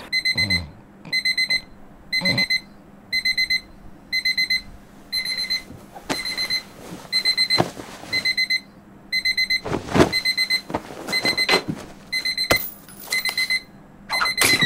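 Digital alarm clock beeping in groups of four short high beeps, about one group a second, with a few soft thumps of someone stirring in bed.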